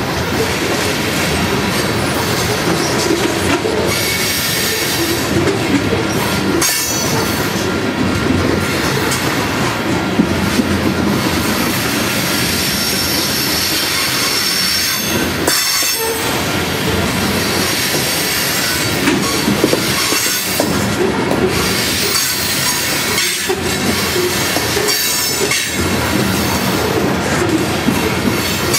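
Steel wheels of a coal train's open-top cars rolling past on the rails: a steady rumble and clatter, with wheel squeal at times.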